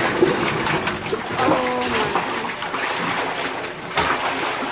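Tank water splashing and sloshing as a large freshwater stingray thrashes against a hand net, with scattered sharp splashes.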